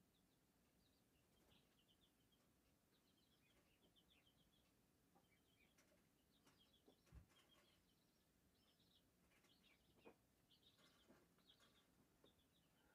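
Near silence: room tone with faint, intermittent bird chirping throughout and a single soft low thump about seven seconds in.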